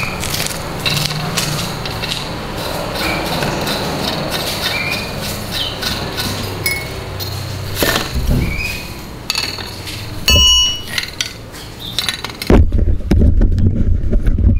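Metal clinks and handling noises as a spark plug is fitted into a small two-stroke brush-cutter engine and tightened with a T-handle spark plug wrench. There is a ringing clink about ten seconds in, then heavier low knocking near the end.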